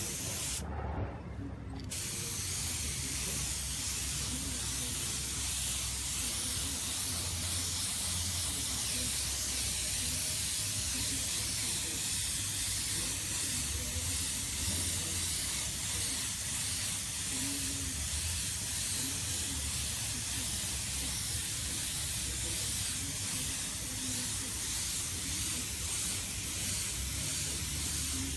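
Air spray gun with a gravity-feed cup spraying paint in a steady hiss. The hiss breaks off for about a second near the start, then runs on, with a low rumble underneath.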